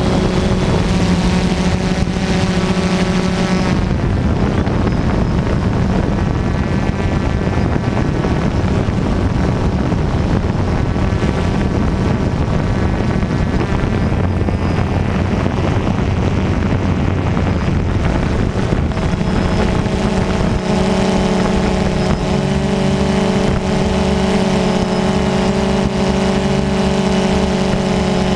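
Loud, steady buzz of a DJI Phantom II quadcopter's electric motors and propellers, heard from the camera slung beneath it; the tone shifts slightly a few seconds in and again near the end as the aircraft manoeuvres.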